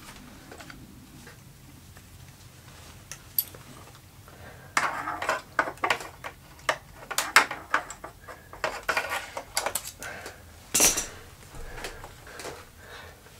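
Hands working on a motorcycle's wiring and plastic parts: a run of small clicks, rattles and scrapes starting about five seconds in, with one louder knock near the end.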